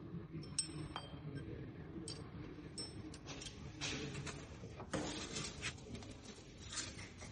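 Hand tools and steel steering parts clinking and scraping as a new tie rod end is fitted, in scattered short clicks, a few with a brief high ring, over a low steady rumble.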